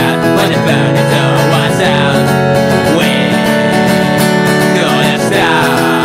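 Acoustic guitar strumming chords steadily in an acoustic punk song.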